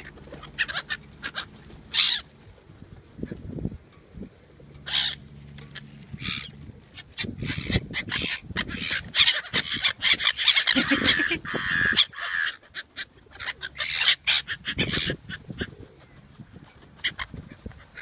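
A flock of black-headed gulls calling over and over at close range, the calling busiest and loudest in the middle stretch.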